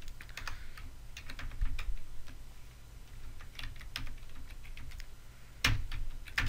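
Computer keyboard being typed on: irregular key clicks, with two louder keystrokes near the end.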